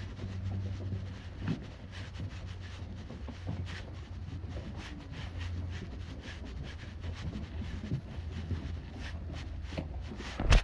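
Footsteps and rustling from a handheld phone while walking on a wooden dock, over a low steady hum, with one sharp knock near the end.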